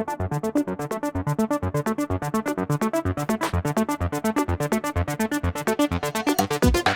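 Electronic dance music: a fast, even pulse of synthesizer notes over a steady beat.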